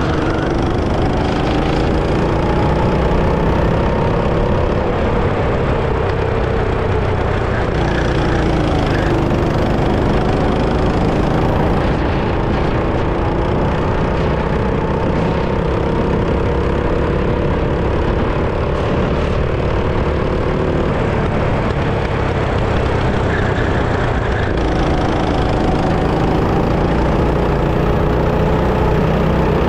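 Go-kart engine running under throttle, its pitch climbing slowly, falling off sharply about nine seconds in, then climbing again before falling off once more near the end, over a steady rush of noise.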